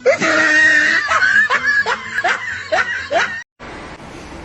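High-pitched laughter: a run of short, falling bursts about a quarter to half a second apart. It cuts off abruptly about three and a half seconds in, leaving a low, steady background.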